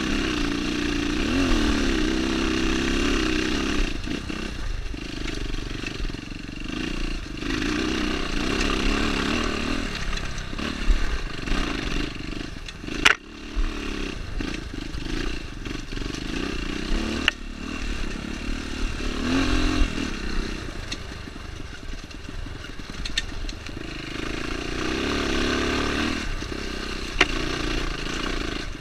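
Dirt bike engine running as it climbs a rocky trail, its revs rising and falling with the throttle. The bike clatters over stones, with a sharp knock about halfway through.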